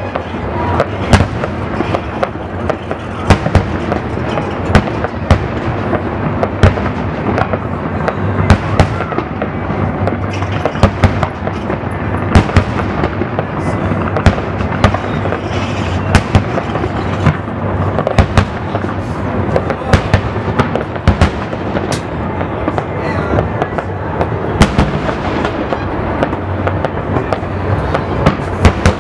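Aerial fireworks shells bursting one after another: sharp bangs every second or so, over a continuous rumble of the display.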